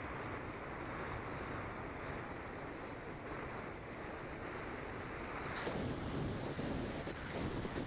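Airstream rushing over the onboard camera of a Bixler II Sport glider flying with its motor off, with no motor sound; the rush grows louder and brighter about two-thirds of the way through.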